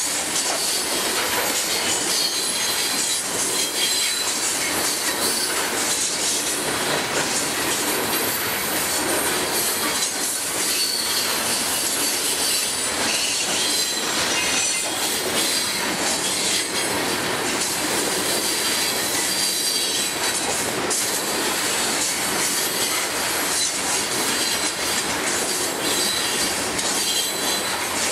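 Freight train of coal hopper cars rolling past close by: steady, loud rumble and rattle of steel wheels on the rails, with thin high-pitched wheel squeals now and then.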